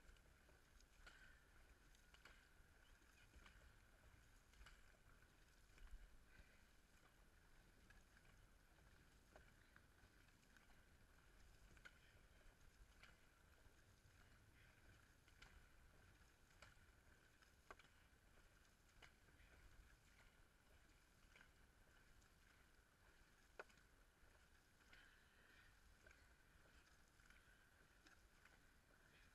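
Very faint, muffled sound of a dragon boat crew paddling in unison, with soft paddle strokes recurring about once a second.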